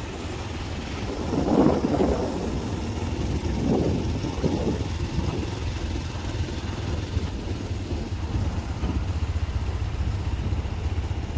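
Motorcycle engine running steadily, with two louder swells about two and four seconds in.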